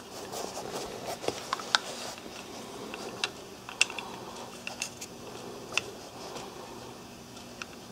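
Small scattered clicks and taps of metal and plastic as a spring trigger-pull gauge is hooked onto a Browning Buck Mark pistol's trigger and drawn back, measuring the trigger pull.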